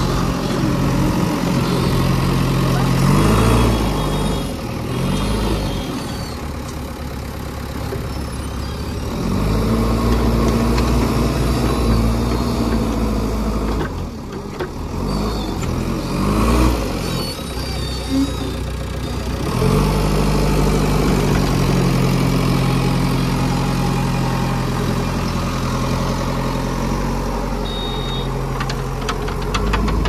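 Diesel engine of a JCB 3DX backhoe loader revving up and down as the loader bucket digs into sand and lifts, the engine held at high revs under hydraulic load for several seconds at a time. A burst of rattling comes near the end.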